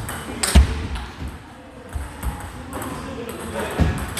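Table tennis ball clicking sharply off bats and table during play, at irregular spacing, the loudest click about half a second in. Voices murmur in the background.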